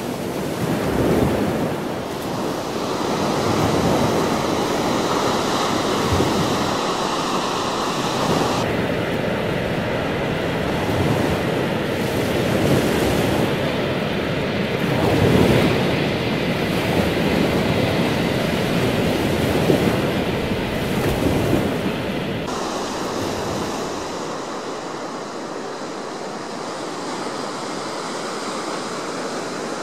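Ocean surf washing in waves, with wind on the microphone. The sound changes abruptly twice, about nine seconds in and again about twenty-two seconds in.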